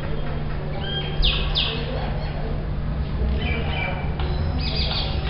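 Mynas calling back and forth. A short whistle is followed about a second in by two loud calls that sweep downward, then more whistled notes past the middle and a burst of rapid calls near the end, all over a steady low hum.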